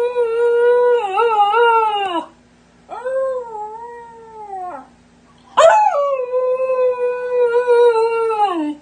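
Siberian husky puppy howling: three long howls, each dropping in pitch as it trails off. The second is quieter, and the third starts with a quick upward sweep.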